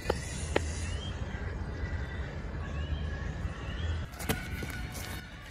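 Outdoor park ambience: a bird giving short chirps every second or two over a steady low rumble, with a few sharp clicks, one about half a second in and another a little after four seconds.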